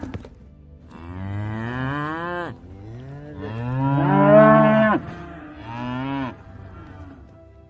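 Cattle mooing: three separate moos, the middle one the longest and loudest, each dropping in pitch as it ends.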